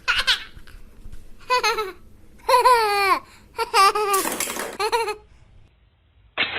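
A young child's high-pitched voice laughing and babbling in about five short bursts, the pitch sliding up and down. Music starts near the end.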